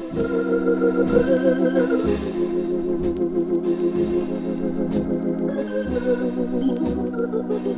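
Hammond organ playing held, wavering chords in a slow jazz number, with a few sparse drum strokes behind it.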